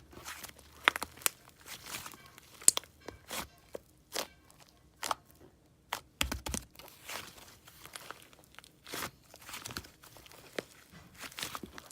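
White slime with crunchy candy and marshmallow toppings being squished and played with by hand, giving irregular crunching, crackling and popping clicks with short quiet gaps.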